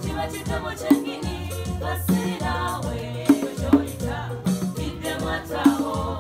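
Band music with singing over a steady bass line and a regular beat, with rattling percussion.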